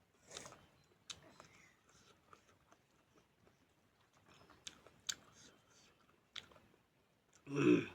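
A person chewing beef close to the microphone, with scattered wet mouth clicks and smacks. Near the end comes a short, loud vocal sound, the loudest thing heard.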